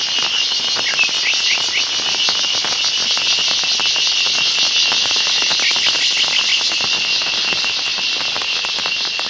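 Loud, steady, high-pitched chorus of forest insects and frogs calling, with a few short chirping calls about a second in and again around six seconds in.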